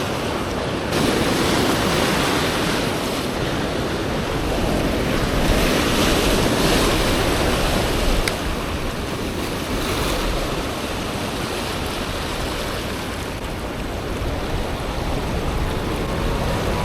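Ocean surf breaking and washing over a rock ledge in big swell, rising in surges a few seconds apart.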